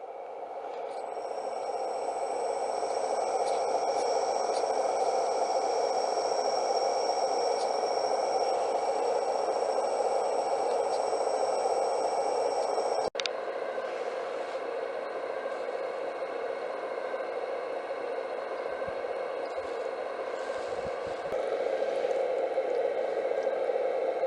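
Suction unit of an RC suction excavator truck running steadily: a rushing air noise with a thin high electric-motor whine. It breaks off abruptly about halfway through and resumes a little quieter and rougher.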